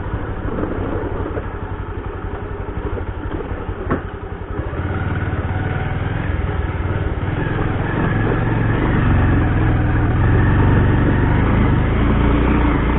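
Motorcycle engine running, low and pulsing at first, then louder and steadier from about five seconds in. A single click sounds just before that.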